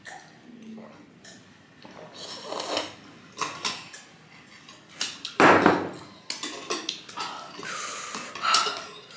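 Close-up eating sounds of noodle soup: slurping and swallowing, with metal spoon and fork clicking against ceramic bowls. One loud burst comes a little past halfway.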